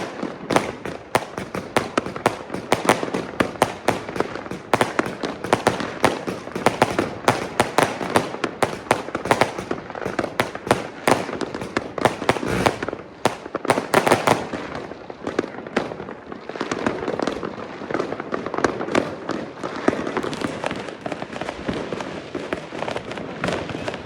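Many consumer fireworks and firecrackers going off at once all around, a dense run of sharp bangs and crackles. After about fourteen seconds the bangs thin out into a steadier crackling haze with scattered reports.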